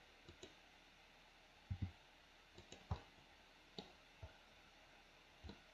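Faint, scattered clicks of a computer mouse and keyboard, a handful of separate clicks, some in quick pairs.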